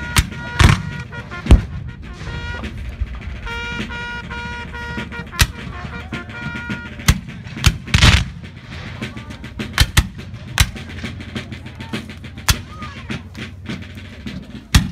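Scattered black-powder musket shots from Civil War reenactors, single reports at irregular intervals, the loudest about eight seconds in. During the first half, a few held musical notes play over the firing.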